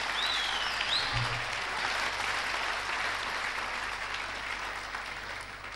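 Auditorium audience applauding, the clapping slowly dying away.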